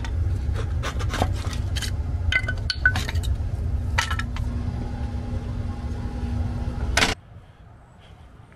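Hand tools clinking and knocking as they are picked up and handled, with several sharp clinks in the first few seconds, over a steady low rumble and hum that cut off suddenly about seven seconds in.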